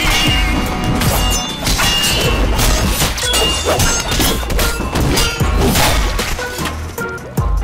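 Film trailer soundtrack: music with heavy bass under a run of crashing, smashing impact sound effects from a fight scene, with a loud hit near the end.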